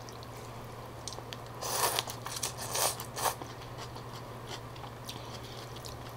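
Phở rice noodles slurped from chopsticks in three short bursts about two seconds in, followed by faint chewing.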